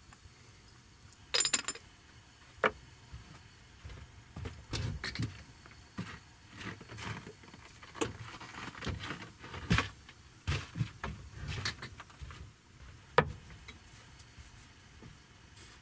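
Handling sounds of a porcelain teapot and its lid: scattered clinks and knocks among bumps and rustles, with a bright ringing clink about a second and a half in and a sharp knock near the end.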